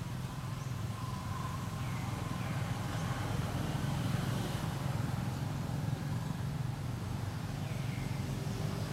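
Steady low engine rumble, like a motor vehicle running nearby, with a few brief high falling chirps over it about two seconds in and again near the end.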